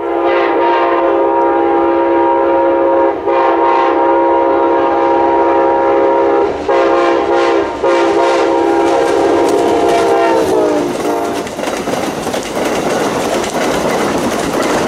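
Amtrak passenger train's air horn blowing four blasts, long, long, short, long. The horn's pitch drops as the locomotive passes, then the passenger cars rumble and clatter by on the rails.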